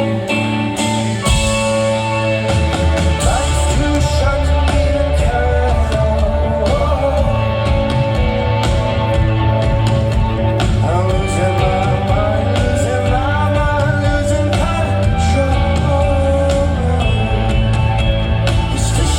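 Live indie rock band playing, with a male lead vocal singing over guitars; the bass and drums come in heavily about two seconds in.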